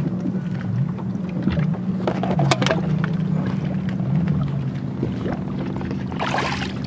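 Water splashing in short bursts as a hooked sturgeon thrashes at the surface beside a boat, over steady wind noise and a low droning hum.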